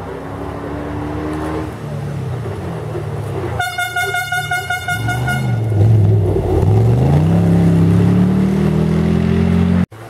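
Off-road rally car's engine passing close, revving up and down, then pulling hard with rising pitch. A horn sounds steadily for about two seconds in the middle. The sound cuts off suddenly just before the end.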